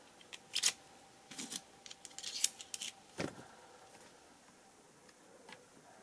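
Small metallic clicks and scrapes of a soldering-iron tip being handled and pushed into the iron's handle during a tip change. A quick run of separate clicks fills the first three seconds or so, then it falls nearly quiet.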